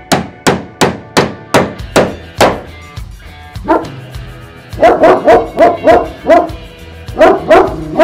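A run of sharp hammer strikes, about three a second, then from about four seconds in a German shepherd barking repeatedly in quick volleys.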